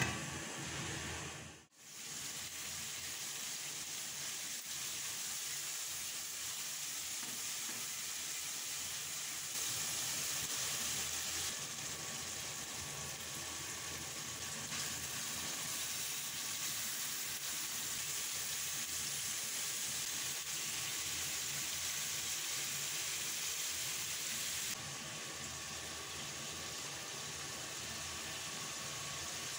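Masala frying in oil in a pan: a steady sizzling hiss, broken by a brief dropout about two seconds in.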